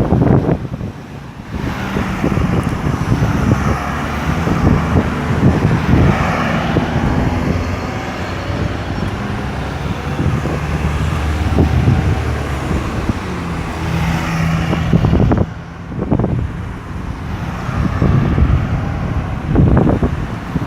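Busy roundabout traffic: cars and heavier vehicles passing one after another, with engines running and tyres on the road. Two brief lulls break it, about a second in and near the three-quarter mark.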